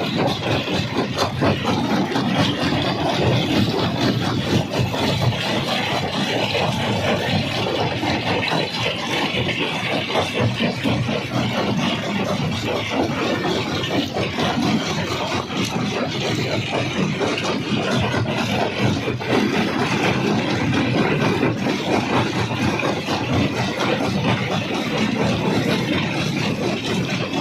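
Jaw crusher running under load: a steady heavy machine drone with a dense, continuous clatter of rock being broken.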